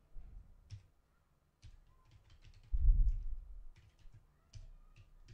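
Computer keyboard typing: scattered, irregular key clicks. A louder dull thump comes about three seconds in.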